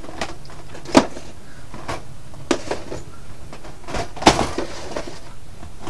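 Plastic DVD and game cases clacking as they are handled and stuffed into a backpack: a handful of sharp knocks, the loudest about a second in and just after four seconds, over light rustling.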